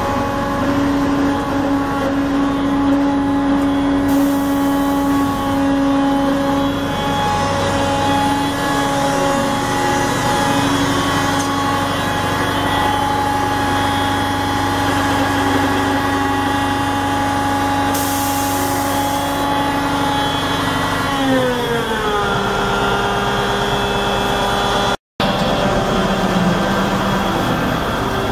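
Diesel engine of a large tracked construction machine running steadily at high revs, then throttled down to a lower idle, its pitch falling over about a second roughly three-quarters of the way through. The sound cuts out for an instant shortly after.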